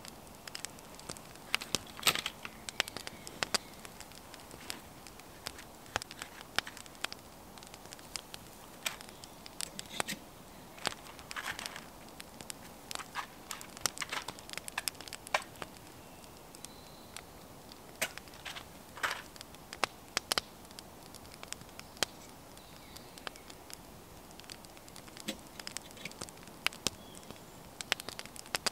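Irregular light crackling and clicking, with a few short rustles in between.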